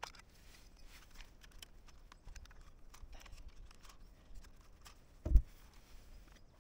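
Plastic handling noise from a DJI Mini 3 Pro drone as its folding arms are swung out: small clicks and faint rustling, with one loud low thump a little after five seconds in.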